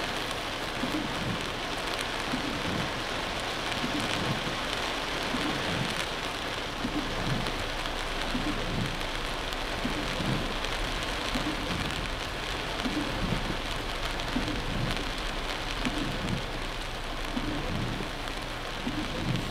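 Heavy rain falling on a car's windshield and roof, heard from inside the car as a steady hiss, with a soft low beat repeating a little faster than once a second.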